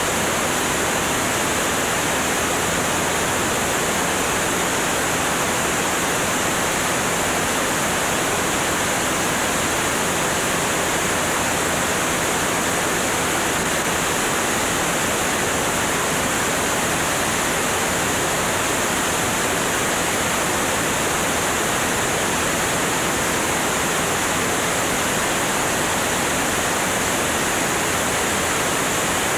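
Steady, even rush of wind over a camera mounted outside on the wing of a Cessna 205 in flight, with the engine and propeller drone faintly beneath it.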